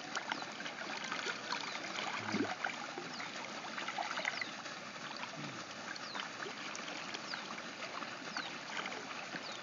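Small, irregular splashes and trickling water as fish swirl and break the surface of a pond around a float.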